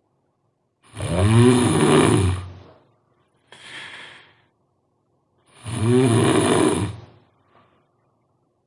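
A sleeping person snoring really loud: two long snores about five seconds apart, with a shorter, softer breathy sound between them.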